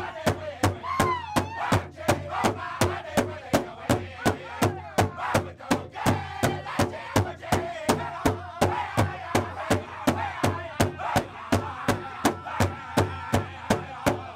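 Pow wow drum group: several singers strike a large powwow drum in unison in a steady beat of about three strikes a second, while singing together in high voices over it.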